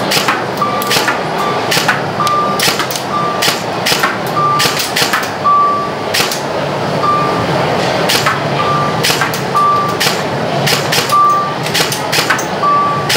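Airsoft rifle firing rapid single shots at an electronic reaction target: sharp clicks come at an irregular fast pace, and the target system answers with short high electronic beeps about once a second. A constant hubbub of crowd noise runs underneath.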